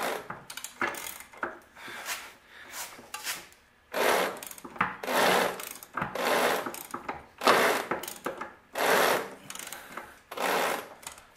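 Old Ford tractor engine being turned over by hand, each turn bringing a weird noise from the back of the engine, about once every second and a half, after a few seconds of fainter clicking. The owner suspects the starter or something in that area.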